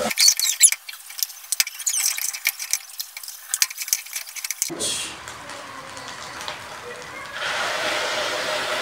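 Spatula stirring rice frying in oil in a pot, with many quick scrapes and clicks against the pot. About three-quarters of the way in, a steady hiss begins as water is poured into the hot rice.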